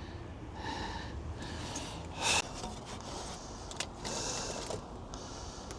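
Repeated rough rubbing and scraping strokes, about one a second, with one louder, sharper scrape about two seconds in: metal parts being worked by hand while a bolt is fitted.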